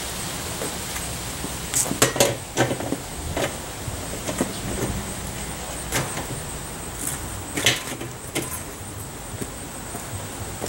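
Metal knocks and scraping clanks from the steel-drum rocket stove's sections being handled, a cluster of sharp knocks about two seconds in and more spread out after, over a steady low background rumble.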